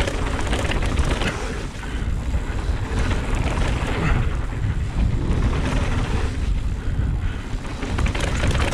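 Mountain bike descending a dirt trail: continuous tyre rumble with rapid small rattles and clicks from the bike, under heavy wind buffeting on the microphone.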